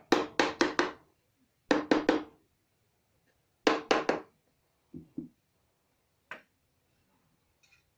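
Hammer knocking wooden parts together during assembly, in quick groups of strikes: about five, then three, then three or four, then a couple of softer taps and a single knock.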